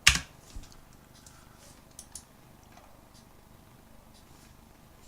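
A single sharp computer keystroke right at the start, entering the typed value, then a few faint clicks over quiet room tone.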